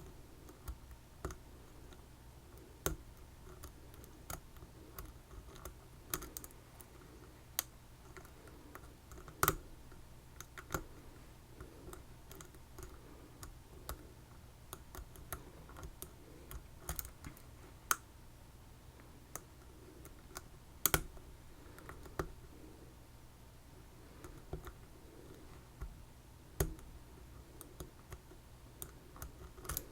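Lock picks working in an Assa Twin 6000 lock cylinder: irregular small metallic clicks and taps as the pins and sidebar fingers are worked, a few sharper than the rest. A steady low hum runs underneath.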